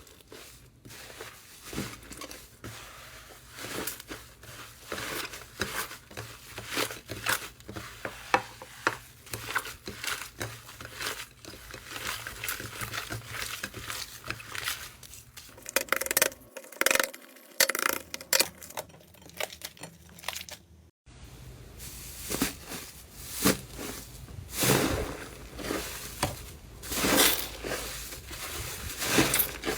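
Slime being squeezed, pressed and poked by hand: a dense run of sticky clicks, pops and crackles. About 21 seconds in it cuts abruptly to another slime clip with louder crackling.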